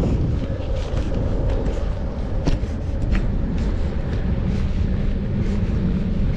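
Steady low wind rumble on the microphone of a camera riding on a moving bicycle, mixed with tyre and road noise.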